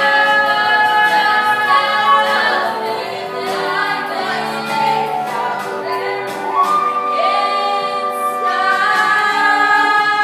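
Middle-school cast singing together in chorus, a show tune with long held notes.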